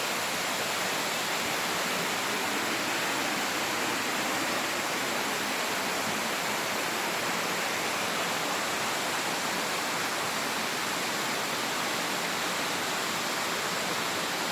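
Waterfall: falling water making a steady, unbroken rush.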